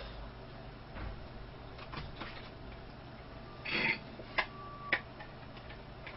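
Quiet eating sounds: soft mouth clicks while chewing a cream pastry, and a short sip through a drinking straw a little before four seconds in, followed by a couple of sharp clicks.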